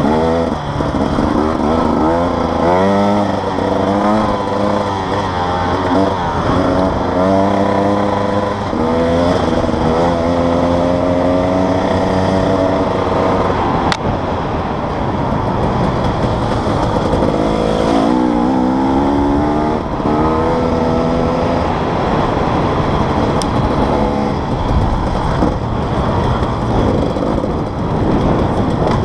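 Enduro motorcycle engine being ridden over a dirt trail, its pitch repeatedly rising and falling as the throttle opens and closes, over wind and ground noise. A sharp knock comes about halfway through.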